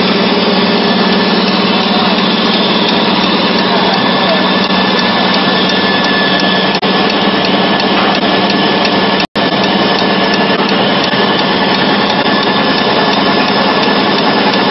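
PLA drinking-straw extrusion line running: a steady, loud machine noise with a constant hum. It cuts out for a moment about nine seconds in.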